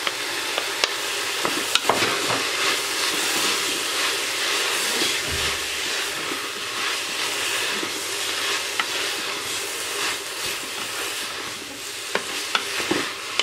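Vegetables and sliced mushrooms sizzling in hot oil in an electric multicooker pot, stirred with a spatula. The spatula clicks and knocks against the pot a few times, about a second in and again near the end.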